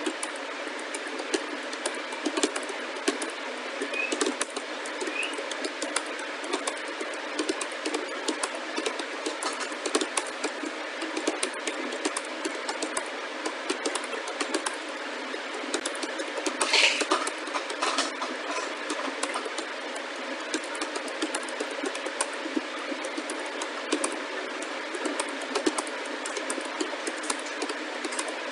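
Laptop keyboard being typed on: a fast, irregular run of key clicks over a steady background hiss, with a louder short noise about 17 seconds in.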